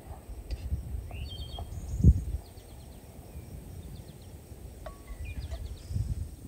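Outdoor ambience: wind rumbling on the microphone, with a dull low thump about two seconds in. A small bird calls in several quick runs of short, high chirps.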